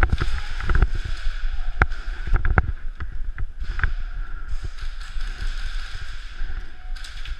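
Footsteps and scattered knocks and clicks of gear handling as a player moves, against a steady background hum. The knocks come mostly in the first four seconds.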